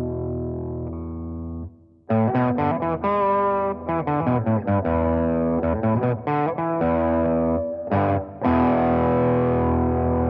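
Electric guitar played through a Techniguitare Custom Screamer V2, a Tube Screamer-style overdrive pedal, giving a distorted tone. A held chord fades out, then short choppy chords and stops follow, and a long chord is struck near the end and left ringing.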